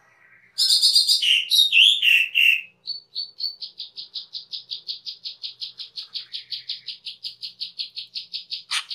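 Asian glossy starling (cucak keling) calling: a burst of loud, harsh chattering notes, then a fast, even series of short sharp notes, about five a second. A brief click near the end.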